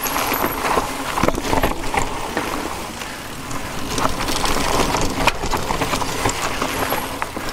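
E-mountain bike riding over a rough forest trail: steady tyre and rolling noise with frequent sharp knocks and rattles from the bike.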